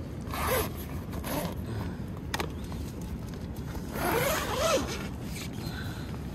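Tent door zipper being pulled open in several short strokes, each rising in pitch, the longest about four seconds in, with one sharp click between them.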